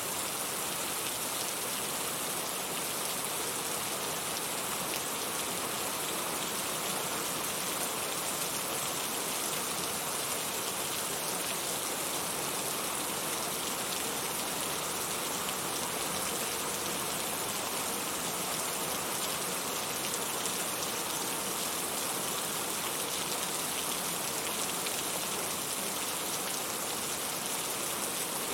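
Heavy rain falling steadily as a dense, even hiss of drops.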